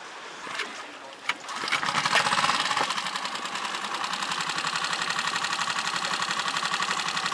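Small outboard motor on an inflatable dinghy running. It comes in about a second and a half in, loudest for a moment, then settles into a steady run with a fast, even pulse.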